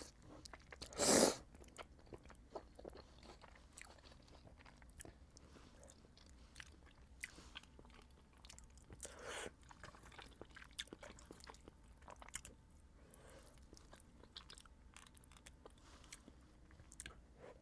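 Close-miked chewing of Buldak instant noodles, with many small wet mouth clicks and a loud, short noisy burst about a second in and a smaller one about halfway through.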